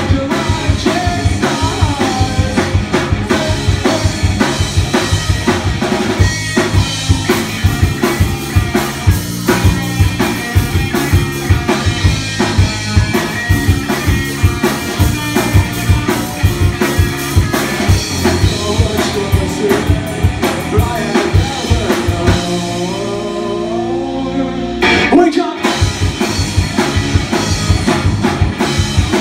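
Live rock band with electric guitars and drum kit playing loudly with a driving drum beat. About 22 seconds in, the drums drop out for a few seconds while held guitar notes slide upward, then the full band crashes back in.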